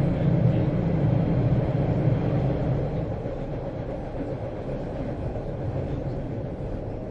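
Steady low rumble of a moving passenger train, heard from on board. It drops somewhat in level about two and a half seconds in.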